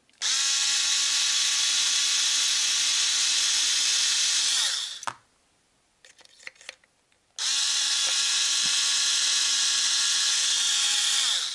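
Cordless drill-driver running twice, about four seconds each time, backing the hex screws out of a Traxxas TRX3.3 nitro engine's cooling head. The motor whine is steady and falls in pitch as it spins down at the end of each run, with a small click or two in the pause between.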